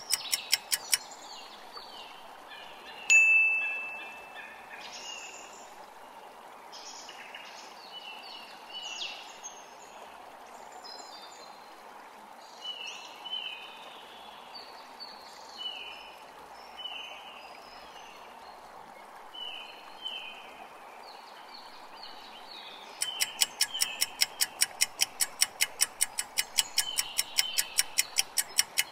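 Quiz countdown sound effects: fast clock ticking stops about a second in. A single bright chime rings out and fades about three seconds in, marking the time-up or answer reveal. Soft chirping, chime-like notes then sound over a steady hiss until the fast ticking starts again near the end for the next question's countdown.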